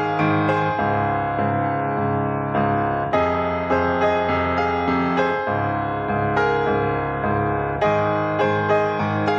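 Background piano music: soft notes played at an even pace, with the chord changing every two to three seconds.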